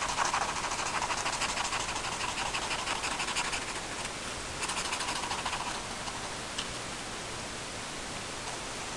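A pen scratching on paper close to the microphone in quick repeated strokes, in two bouts: one for the first three and a half seconds, a shorter one near the middle. After about six seconds only a steady hiss remains.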